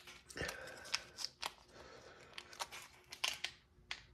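Small foil ration energy-gel packet being handled and opened, with irregular sharp clicks and crinkles.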